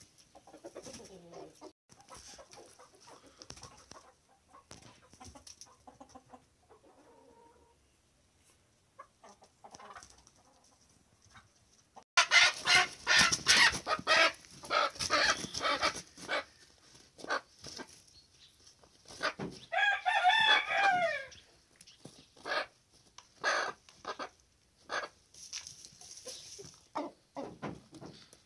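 Chickens clucking softly. About twelve seconds in, a sudden loud flurry of wing flapping and squawking as a rooster mounts a hen. A rooster crows once around twenty seconds in, followed by more scattered flaps and clucks.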